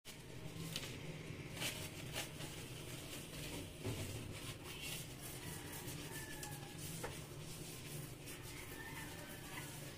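Soft rubbing and a few light clicks of a cloth wiping a glass induction cooktop, over a low steady hum.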